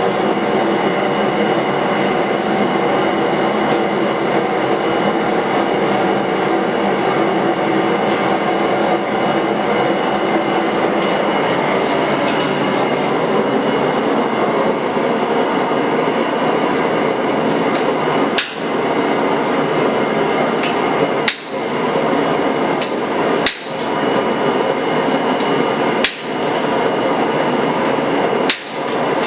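A steady loud roar, with a forging hammer striking hot steel on an anvil from about two-thirds of the way through: five separate blows, roughly one every two and a half seconds.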